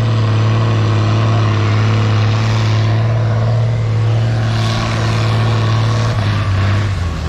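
Diesel engine of a pulling tractor held at full revs as it hauls a brake sled down the pull track. It makes a loud, steady drone that dips in pitch about six seconds in.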